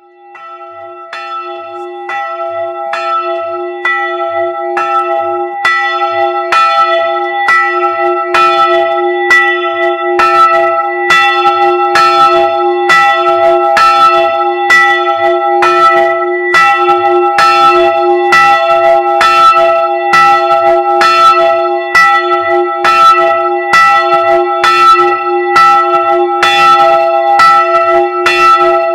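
A single church bell, rung by an electric ringing drive, swinging up from rest. It strikes about once a second with a long ringing hum. The strikes start faint and grow louder over the first ten seconds or so as the swing builds, then ring on evenly.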